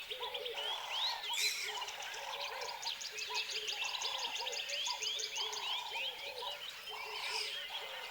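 Tropical forest ambience: many birds chirping and calling over one another, with short lower calls repeating again and again beneath them.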